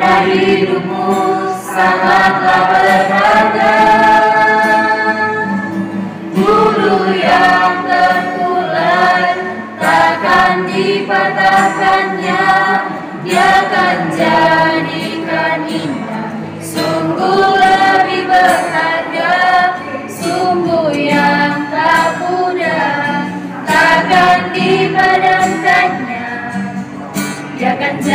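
A small group of teenage girls singing a Christian hymn together.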